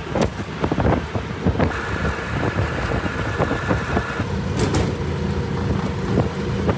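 Auto-rickshaw's small engine running steadily as it drives along the road, with road noise and frequent short rattles from the body. A steady high tone sounds for a couple of seconds in the middle.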